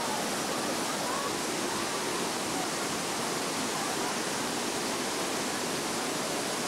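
River cascade of white water over rocks, a steady rushing noise.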